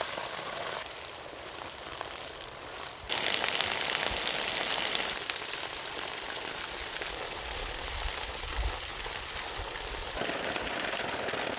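Steady rushing, hiss-like outdoor noise. It jumps abruptly louder and brighter about three seconds in, with a faint low rumble coming and going.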